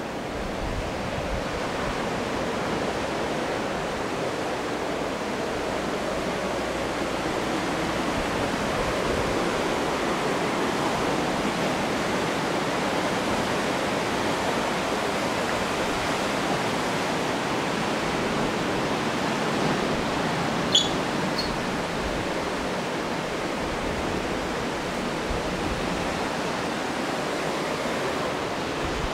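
Steady rushing of ocean surf breaking on the shore below. A single short, sharp high click comes about twenty seconds in.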